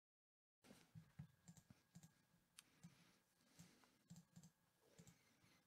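Near silence: the sound drops out completely for the first half second, then faint, irregular clicks and taps follow, a few each second.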